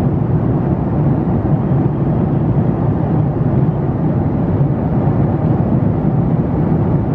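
Steady rushing cabin noise of an airliner in flight, heard from inside the cabin at a window seat.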